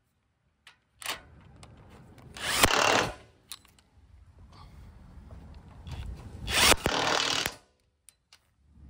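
Cordless power driver spinning a 14 mm socket, tightening the mounting bolts of an electric trailer tongue jack: a short run, then a longer run of about a second and a half, with a few light clicks between.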